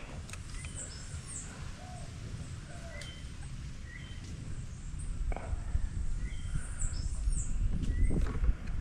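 Birds chirping: short calls repeat about once a second, with a few higher gliding notes, over a low rumble that grows louder in the second half.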